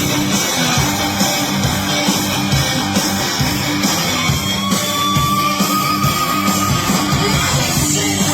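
Loud rock music led by guitar.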